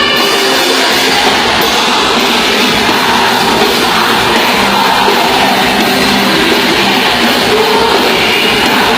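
Loud, steady band music: a rock-style Christian worship song with singing.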